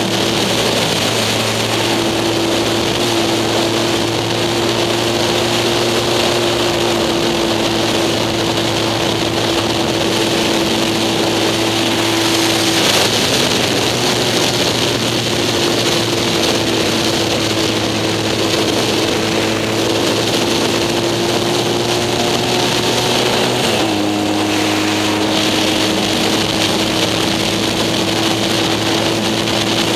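Racing sidecar's motorcycle engine running hard at speed, heard on board over a steady rush of wind and road noise. The engine note mostly holds steady, with a brief dip about a second in, a shift a little before halfway, and a sudden drop to a lower note about four-fifths of the way through.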